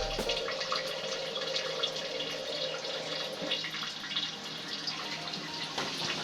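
Tap water running and splashing into a sink.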